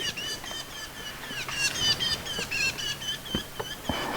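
A flock of fork-tailed drongos calling, a rapid, continuous run of short, clipped chirps, several a second, with a couple of faint low knocks near the end.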